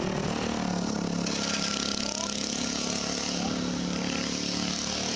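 An engine running steadily, with a hiss joining it about a second in.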